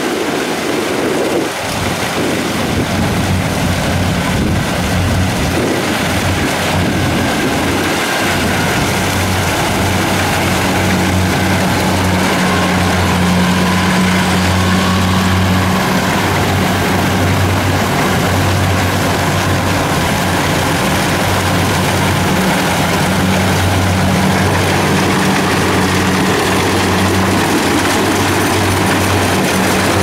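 Kubota DC70 rice combine harvesters running while cutting, a loud steady mechanical din from their diesel engines and threshing machinery. A low engine hum in it grows stronger from about ten seconds in.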